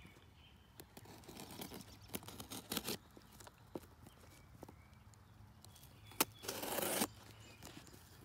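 Packing tape on a cardboard box being slit with a folding knife and pulled back: scattered small clicks and scrapes, with one longer tearing rip about six and a half seconds in.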